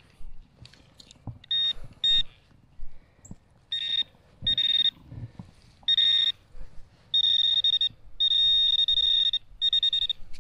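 Metal detector's high-pitched alert tone sounding in about eight short bursts as it is passed over a target in the dig. The bursts lengthen into a longer held tone near the end, with a few soft low thuds in between.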